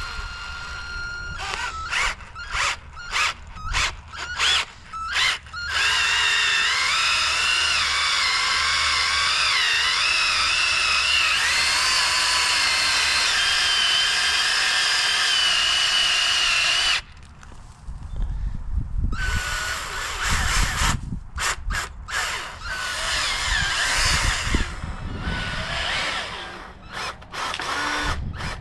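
Power drill turning a 3-inch auger bit into soil. It starts with several short trigger bursts, then runs steadily for about eleven seconds with a whine that wavers as the load changes, and cuts off suddenly. After a brief pause it comes back in uneven stop-start spurts with a lower rumble.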